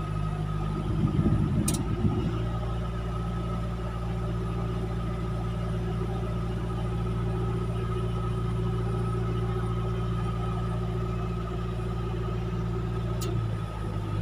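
Vehicle engine idling steadily with the air conditioning running, heard inside the cab, with a steady higher hum over the engine note. There is a brief rustle about a second in and a sharp click near the start. Another click comes near the end as the engine note changes, which fits the AC thermostat cutting out the compressor once the cabin is cold.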